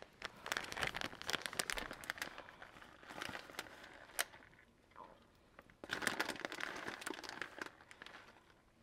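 Plastic cheese packaging being handled and crinkled, in two spells with a short lull between, and a sharp click about four seconds in.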